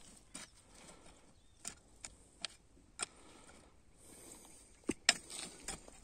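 Hand hoe blade scraping and knocking into the soil as it pulls earth over a planting hole: short, sharp scrapes and knocks at uneven intervals, with two close together near the end.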